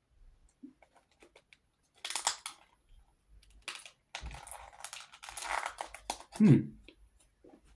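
Toffifee packaging crinkling and tearing in several short bursts as the pack is opened.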